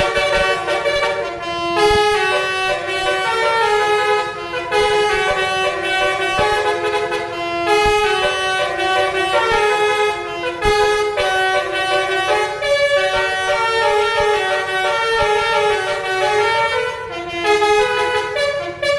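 Indonesian tour bus's basuri horn, a melodic telolet air horn, playing a tune of quick stepped notes that runs on without a break.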